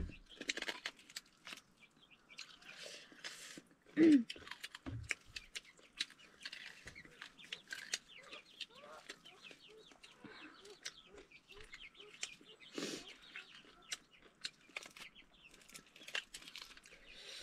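Chickens clucking, with one louder call about four seconds in, among many small scattered clicks.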